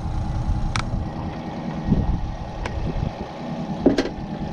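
Tinny's outboard motor idling steadily while a crab-pot rope is hauled out of mangrove branches, with a few sharp clicks and knocks; the loudest comes about four seconds in.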